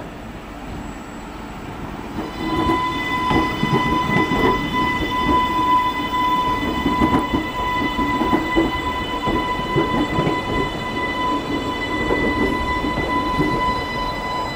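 Island Line Class 484 electric train running past close by, with the rumble and uneven clatter of its wheels on the track. About two seconds in, a steady high whine at one pitch sets in and holds.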